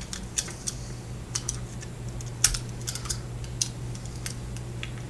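Light, irregular clicks and taps of small plastic phone parts being handled, over a steady low hum.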